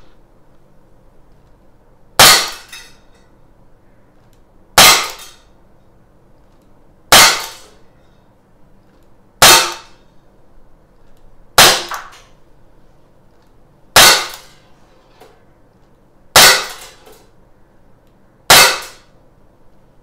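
A CZ 75 P-07 Duty CO2 BB blowback pistol, powered by a 12-gram CO2 cartridge, fires eight single shots in slow, even succession, a little over two seconds apart. Each shot is a sharp, loud pop that dies away quickly.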